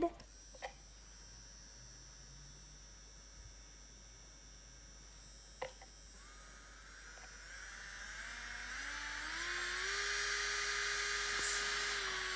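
Charites portable rechargeable electric nail drill running as its speed is stepped up. After two clicks and a faint start, its motor whine climbs in steps from about halfway through, then holds at a high pitch, kind of loud.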